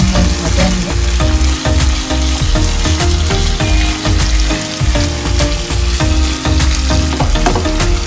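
Shol (snakehead) fish pieces sizzling in oil and masala in a nonstick frying pan, while a wooden spatula scrapes and knocks against the pan as they are stirred and sautéed. Background music with a beat plays underneath.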